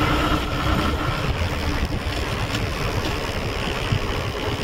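Wind buffeting the microphone on a moving motorbike, over steady engine and road noise. A steady tone stops about a second in.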